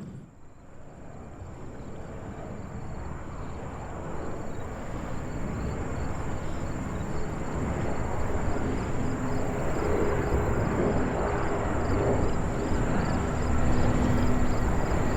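Jet airliner engines approaching, a broad rumble that grows steadily louder throughout.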